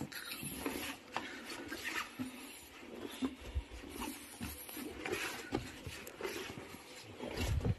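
Footsteps crunching and scraping over loose broken rock in a mine tunnel, irregular small clicks and crunches, with a heavier low thump near the end.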